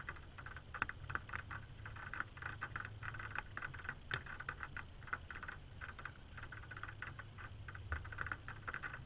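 Light, irregular tapping of raindrops on the car and camera housing, with one sharper tap about four seconds in, over a steady low rumble.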